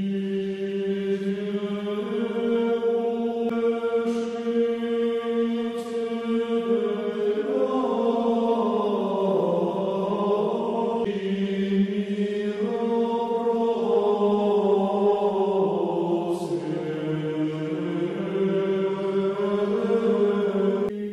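Choir chanting slowly in long held notes, with a steady low note under a slowly moving melody: Orthodox church chant used as the soundtrack.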